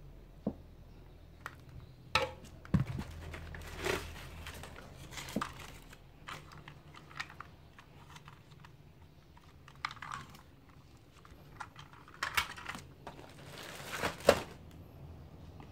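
Plastic toys being handled and pulled out of a cardboard box packed with plastic-bagged items: scattered light clicks and clatters with short rustles of plastic bags, the loudest clatter near the end.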